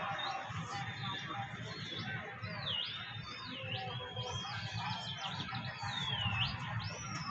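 A bird calling again and again with whistled notes that slide down and then snap sharply back up, several in a row, over a low steady rumble.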